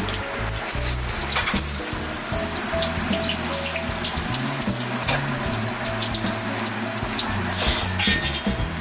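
Stuffed quail searing in a hot skillet, a steady sizzle that grows brighter near the end, over background music.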